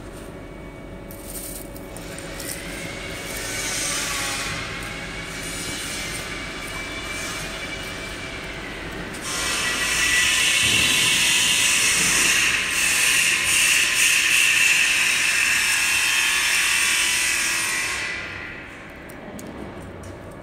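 Multi-layer mesh belt dryer running: its stainless steel mesh conveyor belts and drive give a continuous metallic running noise with high wavering whines. It grows louder about nine seconds in and eases off again about eighteen seconds in.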